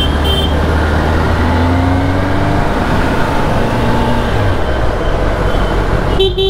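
Kawasaki ZX-10R's inline-four engine running under way, its pitch rising as the bike gathers speed, over a steady rush of road and wind noise. A brief beep sounds near the end.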